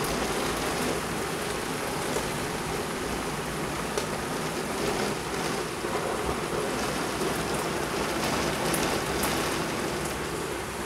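Torrential rain pouring down onto pavement, cars and grass, a steady dense hiss with a few sharp ticks scattered through it.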